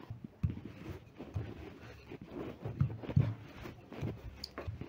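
Wooden rolling pin rolling yeast dough out on a floured countertop: soft, irregular low thuds and rumbles as it is pushed across the dough.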